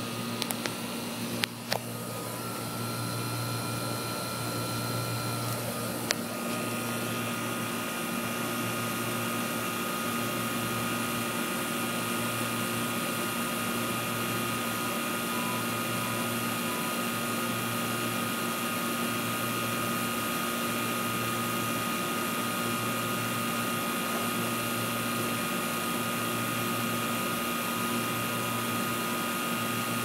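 Outdoor air-conditioner condenser unit running in cool mode: a steady hum from the compressor and condenser fan with a few held tones over a low drone. It builds slightly over the first several seconds, then holds steady. A few sharp clicks come early, and another about six seconds in.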